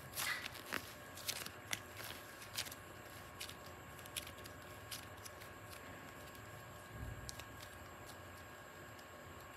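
Faint, scattered light clicks and taps, about one a second, thinning out after about five seconds, with a soft low bump about seven seconds in.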